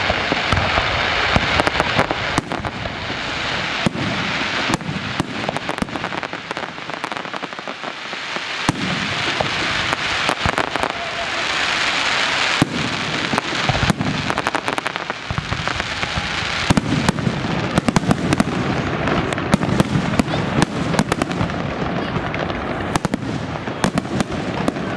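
Aerial fireworks display: shells bursting with many sharp bangs in quick, irregular succession over a continuous crackling hiss.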